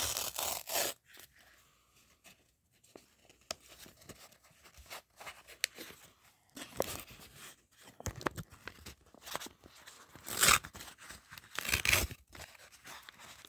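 A paper mailing envelope torn open by hand, then rustled and handled, with several louder bursts of paper noise.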